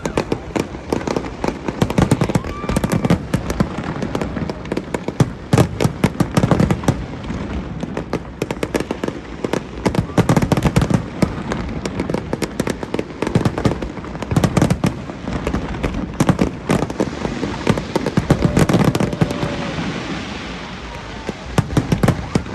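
Aerial fireworks going off continuously: rapid clusters of sharp bangs and crackling over a steady low rumble of booms.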